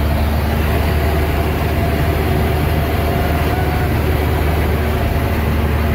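Light single-engine airplane's engine and propeller droning steadily, heard inside the cabin.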